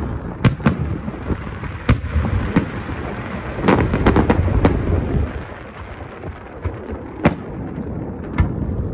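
Aerial fireworks shells bursting in a run of sharp bangs over a low rumble, with several bangs close together about four seconds in and a single strong bang near the end.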